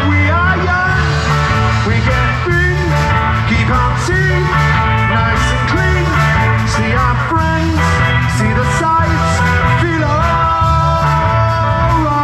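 Live rock band playing: a man singing into a microphone over electric guitars and drums.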